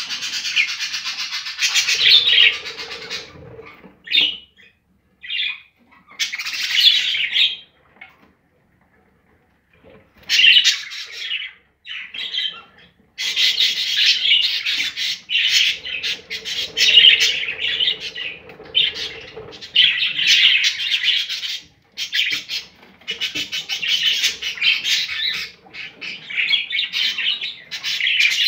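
Budgerigars chirping and chattering in bursts of several seconds, broken by short pauses, with a near-silent stretch about eight to ten seconds in.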